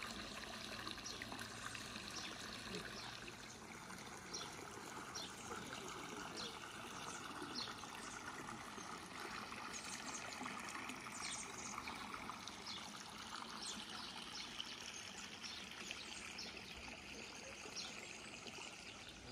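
Steady trickle of running water flowing into a pond, with short, faint high ticks scattered through.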